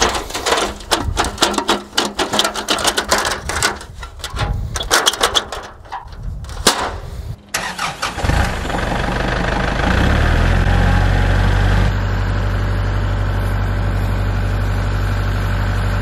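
A quick, uneven run of clicks and knocks, then a Kubota tractor's diesel engine starting about eight seconds in and settling into a steady idle.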